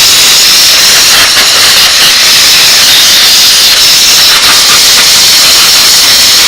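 Steam cleaner nozzle jetting pressurised steam onto the motorcycle's brake area in a steady, loud hiss.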